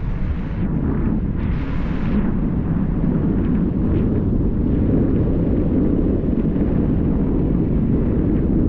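Wind buffeting the microphone while riding along the street: a loud, steady low rumble with a few brief hissy gusts.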